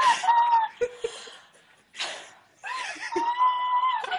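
A young woman's high-pitched squeals of joyful surprise, one at the start and a longer one about three seconds in, with gasping, laughing breaths between them.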